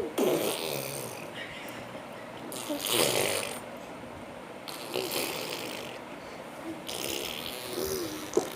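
A baby making breathy vocal noises in four bursts about two seconds apart, with a little voice sounding through them.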